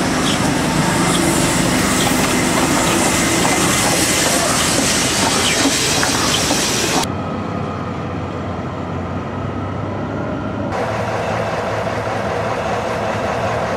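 Steam-hauled train of old passenger coaches rolling past, its wheels clicking over the rail joints over a steady hiss of steam and running noise. After a cut a little over halfway it drops to a quieter, steadier low hum.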